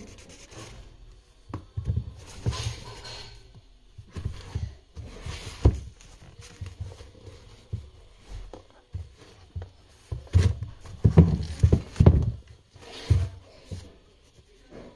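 Handling noise from a leather high-top sneaker being turned over and handled: irregular thumps, knocks and rustling rubs, busiest about ten to thirteen seconds in.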